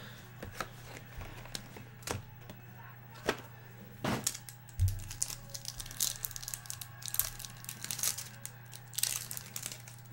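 Hands handling a trading-card box and opening a foil card pack. Scattered clicks and taps at first, then denser crinkling of the foil wrapper toward the end as the pack is torn open.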